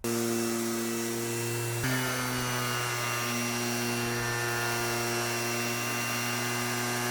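Electric power sander running steadily on the plywood van floor, a motor hum that dips slightly in pitch about two seconds in.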